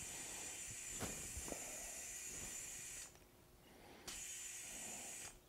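Air hissing faintly through a Power Tank air filler's chuck into a tyre valve. The hiss stops about three seconds in and starts again a second later.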